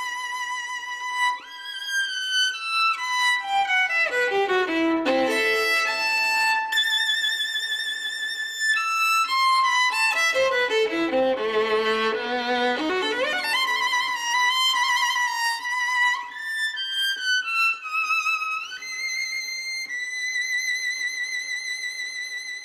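Solo violin theme music: a melody with vibrato, twice running down the scale to low notes and climbing back up again.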